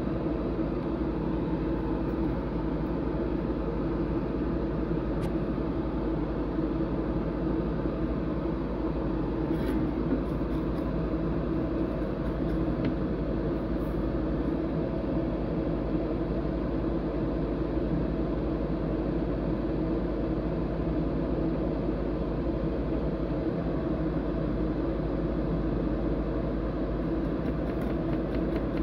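Steady mechanical hum, an even droning noise with faint pitched tones that does not change, with a few faint ticks.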